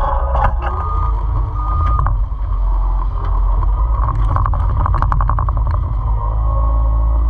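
Caterpillar 256C skid steer's diesel engine running steadily, with brief higher whines about a second in and again near the end. A quick run of rattling comes about four to five seconds in.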